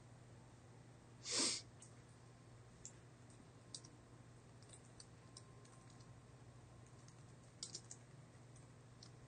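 Faint, sparse clicks of typing on a computer keyboard, with one short, louder rush of noise about a second and a half in.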